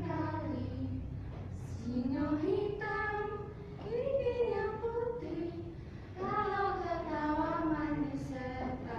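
A group of young teenage schoolchildren singing a song in unison. The singing comes in phrases a couple of seconds long, with held notes that rise and fall in pitch.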